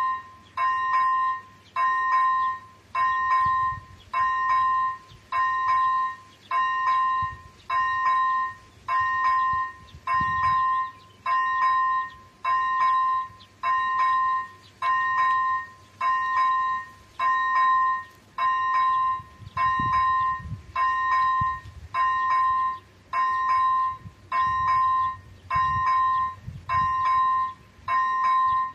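ZV-01 electronic warning bell of an AŽD 71 level-crossing signal, ringing a clear two-pitched tone about once a second without a break. The crossing is activated, warning of an approaching train.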